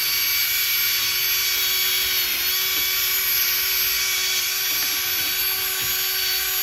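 Cordless drill spinning a wire brush against a rusty steel steering knuckle, scrubbing off rust and scale during a front brake job: a steady motor whine over a continuous hiss.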